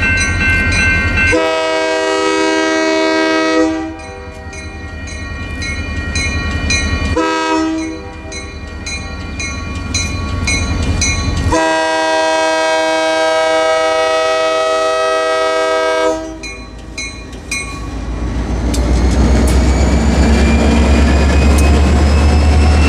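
A diesel locomotive's horn sounds a long blast, a short one, then a long one as it approaches the grade crossing, over the steady, even dinging of the crossing bell. Near the end the locomotive's engine rumbles loudly as it passes close by.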